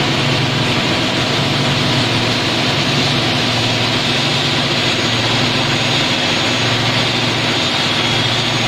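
Motor of a double-head aluminium cutting saw running steadily, its direct-drive 450 mm blade spinning free with an even hum and whir.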